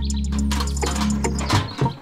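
Background music with steady low sustained notes, dropping out briefly near the end, where a few light clicks are heard.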